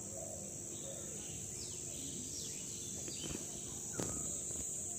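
Steady high-pitched drone of insects in the fields, with faint bird chirps and whistles scattered over it and a single sharp click about four seconds in.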